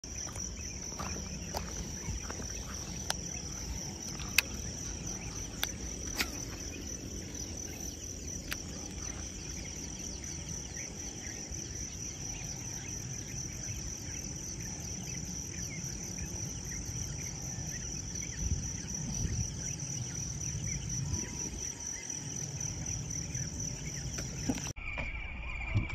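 A chorus of insects trilling steadily at a high pitch, with a few sharp clicks in the first several seconds and low noise underneath.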